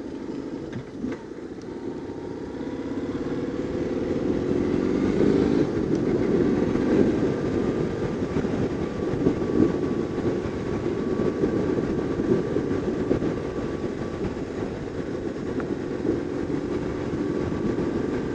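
BMW R850R's boxer twin engine pulling out of a roundabout, getting louder over the first few seconds as the bike speeds up, then running steadily at road speed.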